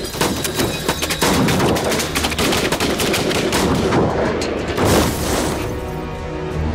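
Rapid automatic rifle fire, many shots in quick succession, with music underneath. Near the end the shooting stops and the music carries on.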